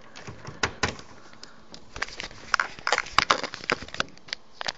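Irregular plastic clicks and knocks, thicker in the second half, as a pair of 8 cm PC cooling fans is handled and pushed into place.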